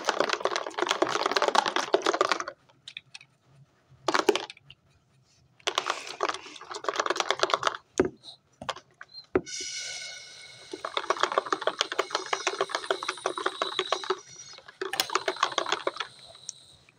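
Hand-made percussive sound effects for a waterfall: stop-start bursts of dense, rapid rattling clicks with a few single clicks between them. About halfway through, a struck ringing tone with many overtones comes in and slowly dies away near the end.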